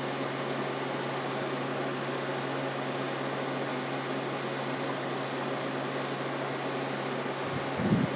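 Steady machine hum and hiss, like a running fan or air conditioner, with a brief low thump near the end.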